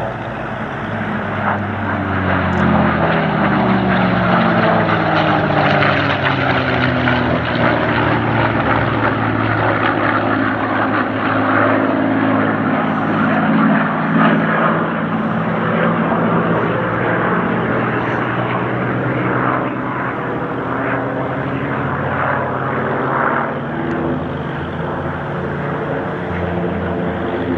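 Piston-engined warbird flying a display pass, a steady propeller-engine drone whose pitch slides slowly up and down as it moves past.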